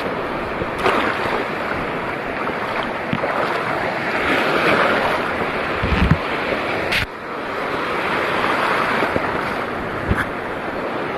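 Seawater sloshing and washing, swelling twice, with wind buffeting the microphone and a few dull knocks and a sharp click about seven seconds in.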